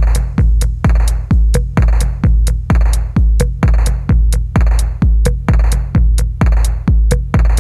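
Electronic dance music with a steady four-on-the-floor drum-machine beat of about two kicks a second, heavy bass and crisp hi-hats.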